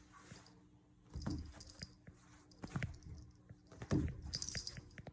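Three soft punch hits about a second and a half apart, each sliding down in pitch, with light jingling: sound effects added to a cat's paw swipes.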